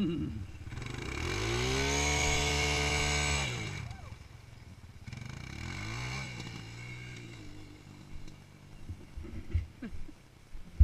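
Honda ATV engine revving up as the quad pulls away, held high for about two seconds, then easing off; a second, fainter rev follows around six seconds in and fades as it moves off. Low bumps on the microphone near the end.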